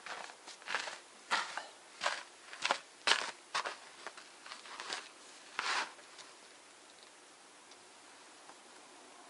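Footsteps crunching in packed snow, about a dozen uneven steps over the first six seconds, then only a faint steady hiss.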